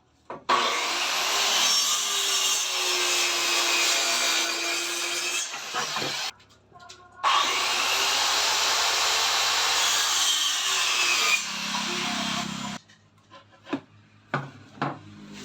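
Electric saw cutting through wood in two steady cuts of about five seconds each, with a short pause between them, followed by a few light knocks near the end.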